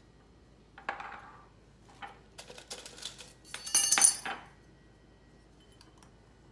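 Metal candle wick bars clinking and rattling against each other and on the rims of glass jars as they are handled: a clink about a second in, a few light clicks, then the loudest metallic rattle around four seconds in.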